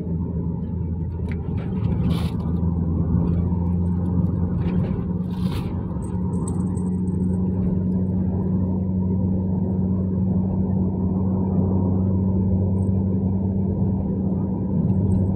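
Car cabin noise while driving: a steady low engine and road drone. A few brief rustles cut in about two and five and a half seconds in.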